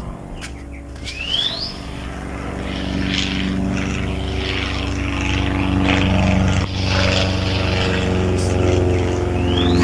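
Cessna 172 Skyhawk's propeller engine droning as the plane approaches low, growing steadily louder.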